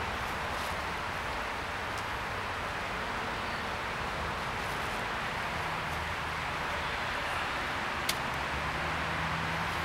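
Steady outdoor background noise with a low hum that grows stronger after about five seconds, and a single sharp click about eight seconds in.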